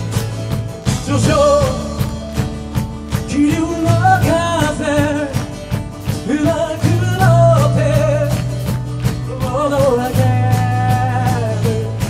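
Live band playing a pop-rock song: a man sings the lead vocal with vibrato over strummed acoustic guitar, a steady drum beat and bass.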